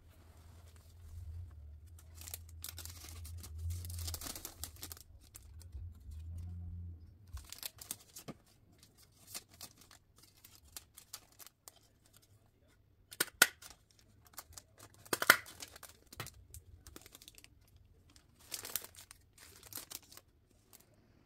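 Clear plastic treat bags crinkling and rustling as they are handled and filled, with a few sharp crackles of the plastic. A low hum sits under the first several seconds.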